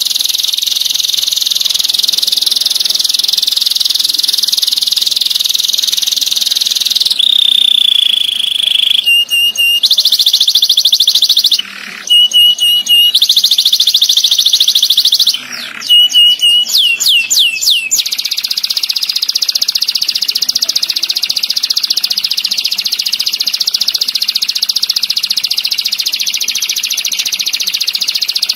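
Domestic canary singing long, rapid rolling trills. About a third of the way in it holds a single whistled note, then breaks off twice briefly and gives a few quick downward-sweeping notes before the rolling trill resumes.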